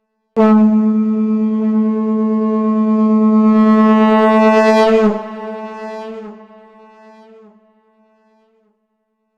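Conch shell (shankh) blown in one long, steady note on A, starting suddenly. Its tone wavers about five seconds in, then it carries on softer and fades away.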